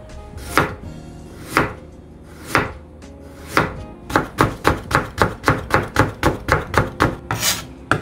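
Chopping with a blade on a cutting board: four single chops about a second apart, then a quick run of about four chops a second that stops shortly before the end.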